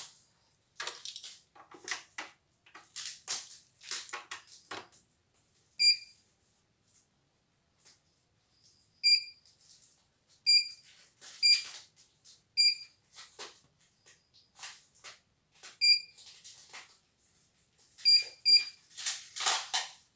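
CNY E900 embroidery machine's control panel giving short, single-pitched beeps as its keys are pressed, about eight in all with irregular gaps. Taps, clicks and rustles come in between, the loudest near the end.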